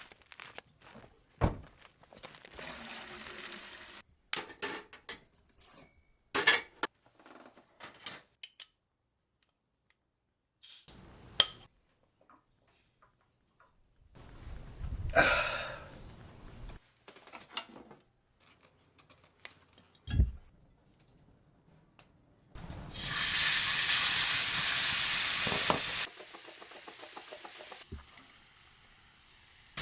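Camp cooking sounds in short cut-together pieces: knocks and clatter of utensils and cookware, then food sizzling loudly in a hot pan for about three seconds near the end.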